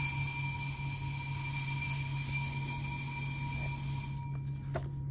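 A sustained bell-like ringing tone with several high overtones, held steady and stopping about four seconds in, over a steady low hum. A single short click comes near the end.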